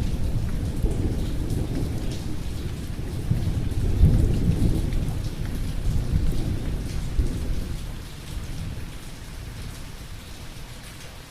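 Steady rain falling with a long roll of thunder rumbling underneath, swelling to its loudest about four seconds in and fading away over the last few seconds.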